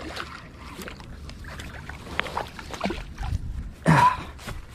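A small sturgeon splashing at the surface and rustling through bankside weeds as it is reeled in on light tackle and hauled out onto the grass, with one sudden loud burst about four seconds in as it comes out of the water.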